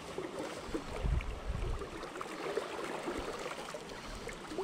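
River water flowing and lapping, with a brief low rumble about a second in.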